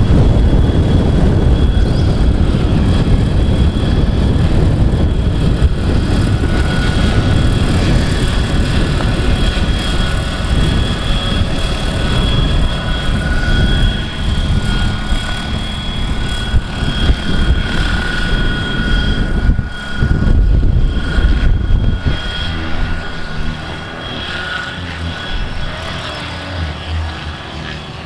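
Large-scale radio-controlled Bell 206 JetRanger model helicopter flying past with a steady high whine that wavers slightly in pitch, over heavy wind buffeting on the microphone. It grows fainter over the last few seconds.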